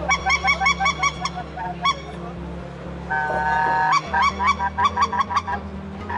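Goose hunting call sounding a series of honks: quick runs of short, clipped honks at about five a second, broken about three seconds in by a long held note, with a steady low drone underneath.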